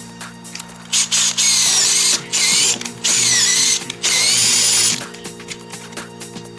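Power drill run in several trigger bursts of about a second each, its motor speed rising and falling within each burst, over background music.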